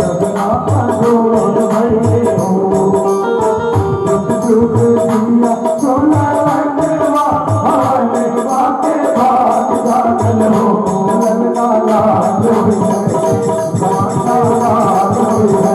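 Instrumental passage of a devotional bhajan: a keyboard instrument playing held notes over steady hand-drum beats and jingling percussion.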